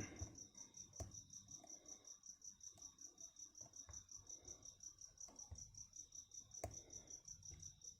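Faint scraping and a few light clicks of a lock pick and tension bar working the pins inside a Best padlock, over a steady high-pitched pulsing chirp, about six pulses a second.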